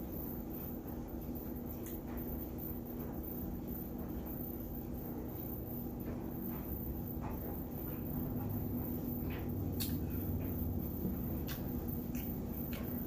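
Quiet eating sounds: a few small sharp clicks and faint mouth and handling noises over a steady low hum.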